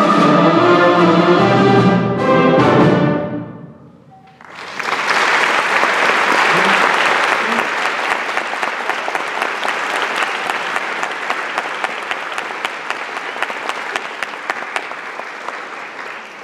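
An 8th-grade concert band with brass plays its final chords and cuts off about three seconds in. After a short gap the audience breaks into applause, which slowly dies away near the end.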